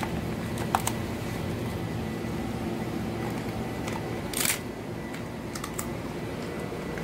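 German Shepherd puppy chewing a dried pig ear: scattered sharp crunches and clicks, the loudest about four and a half seconds in, over a steady low hum.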